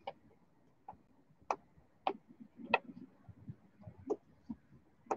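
Field hockey stick tapping the ball: faint, sharp clicks, about seven of them, coming irregularly roughly every half second to second while the ball is carried, stopped and turned.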